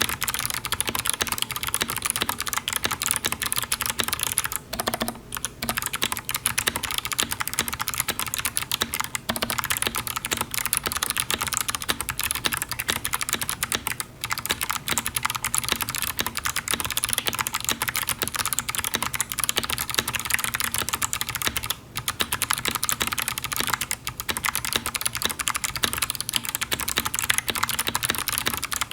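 Fast continuous typing on a mechanical keyboard with clicky switches, a dense clatter of key clicks that breaks off in short pauses a few times.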